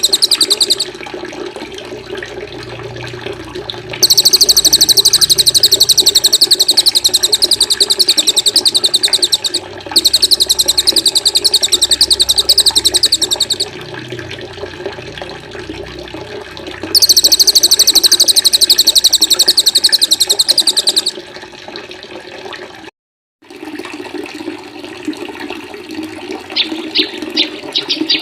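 Birdsong training recording: a small songbird's very fast, high buzzing trill in long bouts of several seconds each, over a steady sound of running water. The sound cuts out completely for a moment about 23 seconds in, and softer single chirps follow near the end.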